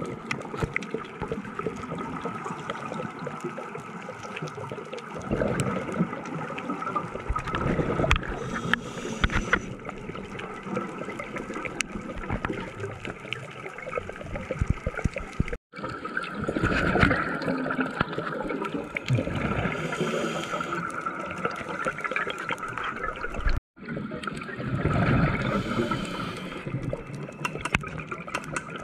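Recorded underwater: scuba exhalation bubbles gurgling from the diver's regulator, swelling every few seconds over a steady watery hiss with scattered small clicks.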